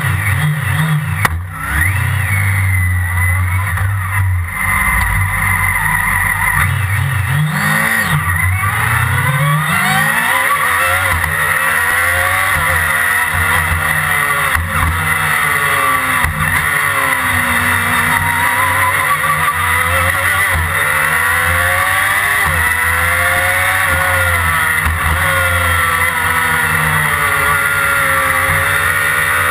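Onboard sound of a Formula Predator's 600cc single-seater race car's engine, running fairly steadily at the start line for the first several seconds, with a sharp knock about a second in. It then pulls away, revving up and down through the gears and corners.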